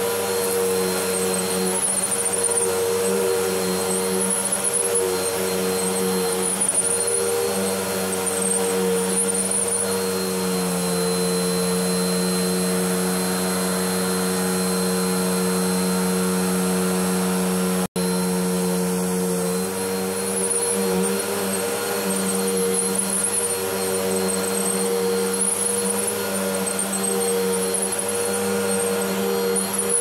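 Bagless upright vacuum cleaner running steadily as it is pushed over carpet, a constant motor hum with suction noise. The sound cuts out for an instant about 18 seconds in, then resumes.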